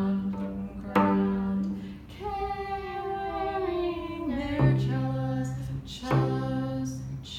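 Cello strings plucked pizzicato: a higher note is plucked twice, each ringing about a second, then a voice sings a long sliding note that falls in pitch, then a lower note is plucked twice.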